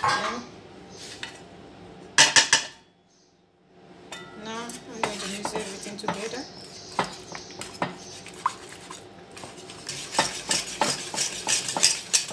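Wire balloon whisk clinking and scraping against a stainless steel bowl as flour is beaten into milk for a béchamel. There is a loud metal clatter about two seconds in, then a brief break, and the strokes come faster and denser near the end.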